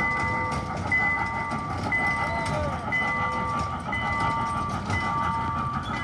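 Trackless miniature park train rolling past on a paved path with a low rumble, sounding a steady whistle-like hum of several tones, one higher note pulsing about once a second.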